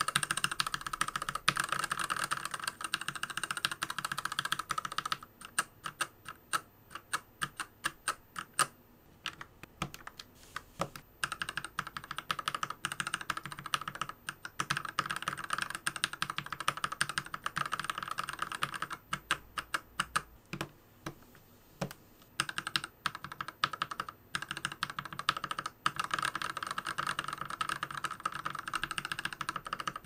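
Mechanical keyboard fitted with FEI Plus switches being typed on: fast runs of keystrokes alternate with slower, separate key presses. The switches are lubed, and in some passages also filmed.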